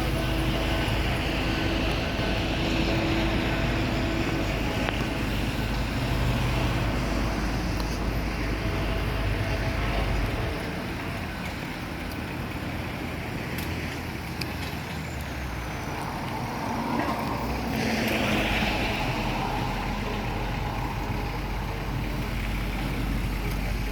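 Motor vehicle engine running steadily, with a deep rumble that eases for several seconds about ten seconds in and then returns.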